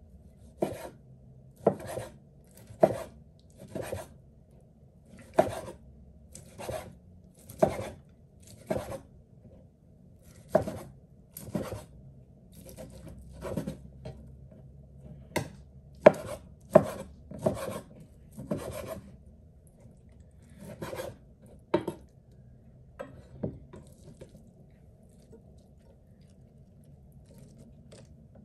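Kitchen knife slicing through grilled chicken breast and striking a wooden cutting board, about twenty separate cuts at roughly one a second. The cutting stops about three-quarters of the way through.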